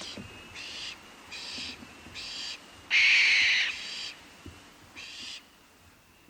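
Barn owl calling: a series of short, harsh, rasping screeches, about one a second, the loudest and longest one about halfway through.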